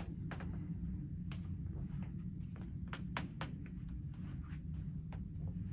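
Quiet room tone: a steady low rumble with a dozen or so faint, irregular clicks and taps scattered through it.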